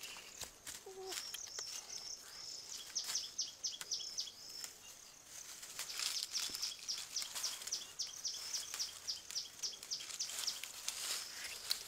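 Forest wildlife chirping: short high chirps repeated quickly, about four a second, in a brief run a few seconds in and a longer run from about halfway on.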